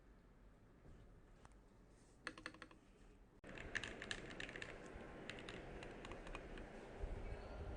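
Typing on a mechanical keyboard fitted with XDA-profile PBT keycaps: quick runs of key clacks, a short burst about two seconds in and a longer run a little later. Just before the longer run, the background hiss rises suddenly.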